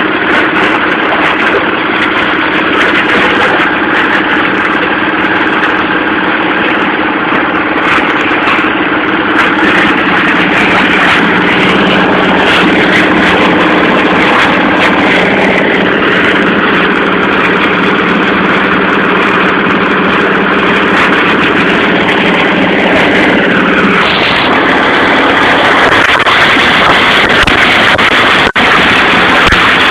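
Plastic crusher machine running loudly and steadily, a dense mechanical din with a steady hum that shifts in tone about three-quarters of the way through.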